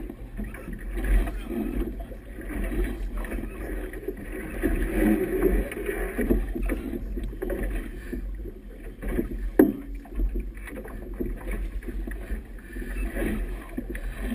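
Choppy river water slapping and splashing against a small boat's hull, with a steady low wind rumble on the microphone. A single sharp knock about ten seconds in.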